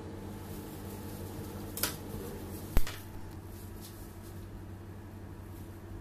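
Steady low mechanical hum, with a soft tap just before two seconds in and a single sharp click a little under three seconds in.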